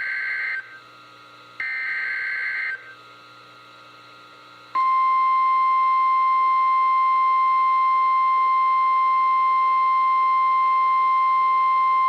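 NOAA Weather Radio EAS alert through a weather radio's speaker: the last two bursts of the SAME digital header, each about a second of buzzy warbling data tones. After about two seconds' pause, the steady 1050 Hz warning alarm tone starts about five seconds in and holds loud and unbroken, signalling that a warning message follows.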